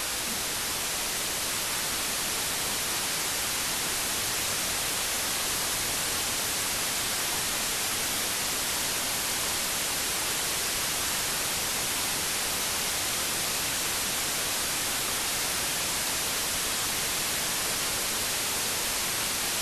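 Steady, unbroken hiss of static-like white noise, brightest in the high end, holding one level throughout.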